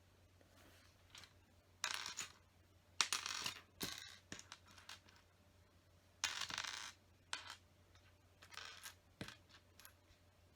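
Loose plastic LEGO pieces clattering as hands sift through them while searching for parts. The clatter comes in several short bursts of rattling, with single clicks between them.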